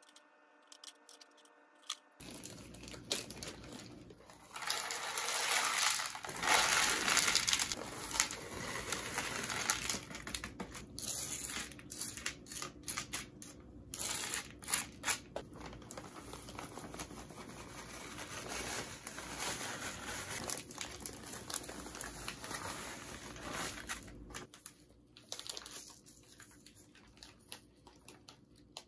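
Potting-mix bags crinkling and decomposed granite grit poured and scooped into a plastic planter, with scattered rustles and clicks. The loudest pouring and crinkling comes a few seconds in, and the sound is softer near the end.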